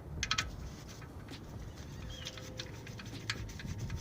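Oil drain plug being threaded back into the oil pan by hand: faint scattered metallic clicks and light scraping.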